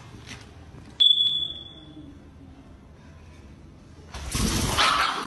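A metal food bowl struck once, giving a sharp knock and a clear high ping that fades over about a second. Near the end, a loud burst of noise lasts about a second.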